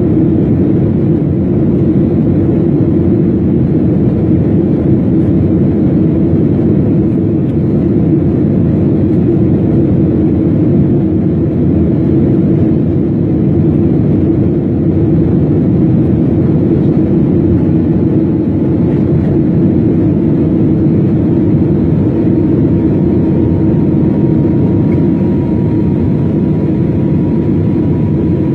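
Jet airliner cabin noise during the climb after takeoff: the engines and rushing air make a loud, steady, low noise heard from a window seat over the wing. A faint high whine comes in during the second half.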